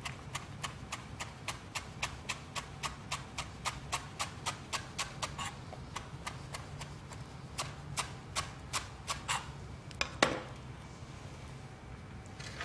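Knife chopping fresh coriander on a wooden cutting board, quick even knocks at about four a second. A pause midway, a second shorter run, then one louder knock near the end.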